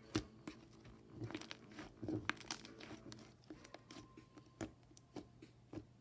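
Thick green slime being stretched and squished by hand, giving irregular sticky pops and crackles as it pulls apart and folds back together.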